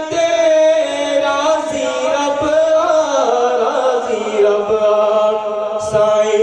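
A man's voice singing a Sufi devotional chant into a microphone, drawing out long, slowly gliding notes with few breaks.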